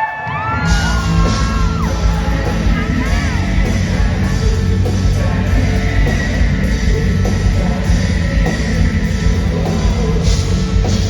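Live rock band playing loudly, heard in a large indoor hall: the full band with drums and bass comes in about a second in, with singing and yells over it.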